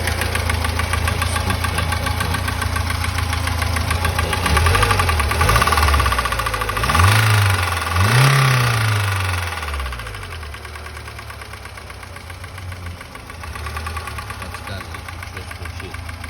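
VAZ-2104 (Lada) four-cylinder engine running with a knock, blipped up in several short revs about four to ten seconds in, then settling back to idle. The owner suspects the knock is a connecting rod.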